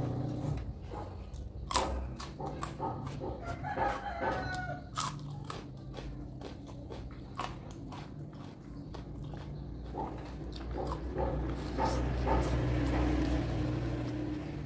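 Close-up chewing and crunching of raw vegetables, in short sharp crunches, with a rooster crowing in the background about four seconds in and a steady low hum underneath.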